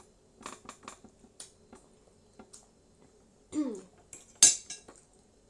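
Metal cutlery clinking against plates: a quick run of light clicks about half a second to a second in, a few scattered ones after, and a louder clatter about four and a half seconds in. A brief falling tone comes just before the clatter.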